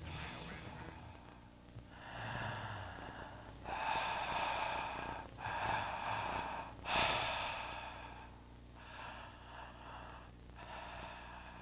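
A person breathing heavily, a series of about seven loud, hissy breaths in and out, each about a second long, the loudest about seven seconds in.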